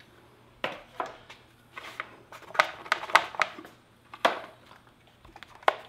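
Irregular sharp clicks and light knocks of plastic and metal as a timing belt cover is worked off the front of a Toyota 3S-GE engine by hand, about a dozen taps in uneven clusters.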